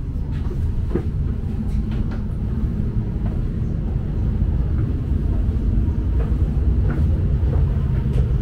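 Low, steady rumble inside a Trenitalia double-decker train carriage, growing a little louder about halfway through, with faint scattered clicks.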